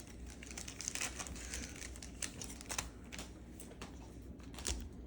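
A trading card pack wrapper crinkling as it is torn open and handled, a run of quick crackly rustles and small ticks.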